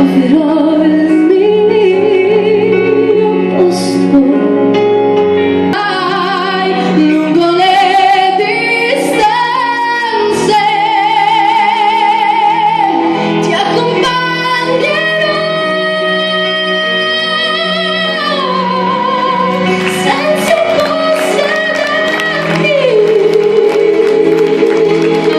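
A woman singing a melody with vibrato over instrumental accompaniment, holding long notes, the last one near the end.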